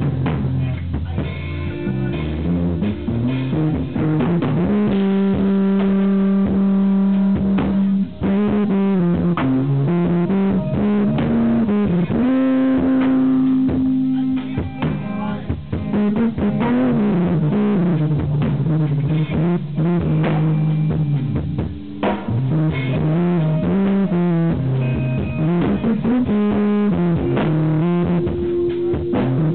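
Live instrumental jazz-rock fusion trio: electric guitar playing a lead line with long held and bent notes over electric bass and drum kit. The recording is overdriven and distorted.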